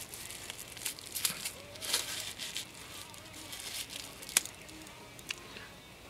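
Plastic packaging bags crinkling and rustling as small packaged items are handled. There is a sharp click about four seconds in and a fainter one a second later, and the rustling dies down toward the end.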